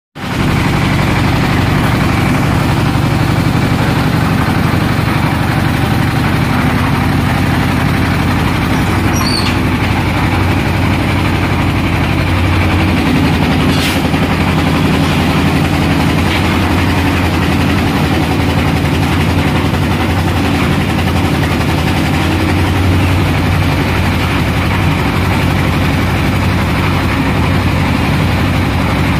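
Diesel engine of a concrete mixer with a built-in lift hoist, running steadily under load; its note shifts a little about halfway through.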